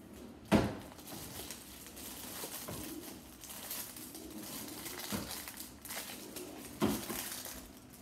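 Rustling and crinkling of packaging being handled, with a sharp knock about half a second in and another near the end, and a few softer knocks between.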